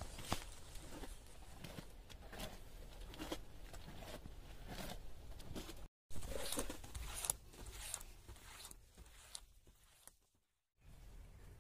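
A stick stirring thick, nearly set palm-sap syrup (palm jaggery) in a pan, making irregular scraping and sticky clicking sounds. The sound cuts out abruptly about six seconds in, and again briefly near the end.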